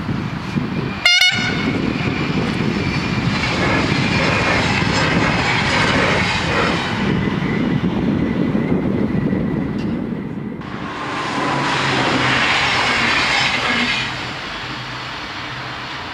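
Electric passenger trains passing on an overhead-wire main line, with rushing wheel and rail noise. A short horn toot sounds about a second in. The first train's noise fades after about seven seconds, and a second train rises and passes from about ten to fourteen seconds in.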